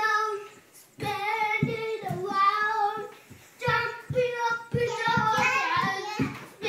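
A young child singing in short phrases with held notes, with a pause about a second in and another near the middle. Feet thump on a wooden floor as the children dance.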